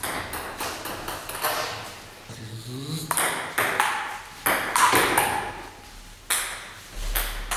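Table tennis rally: a celluloid ping-pong ball clicking off paddles and the table top, sharp hits every half second to second and a half, each ringing briefly in the room.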